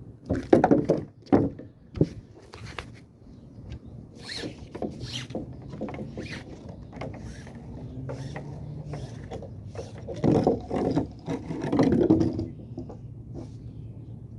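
Knocks, clicks and clatter of a fishing magnet and its rope being handled, with a louder stretch of handling noise about ten seconds in.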